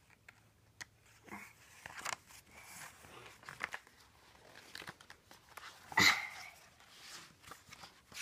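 Pages of a hardcover picture book being handled and turned: soft paper rustles and small taps, with one louder, sharper sound about six seconds in.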